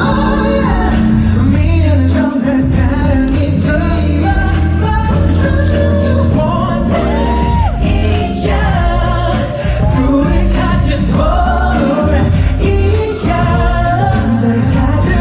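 Live amplified band music with a male lead vocal singing a melody over steady bass, echoing in a large concert hall.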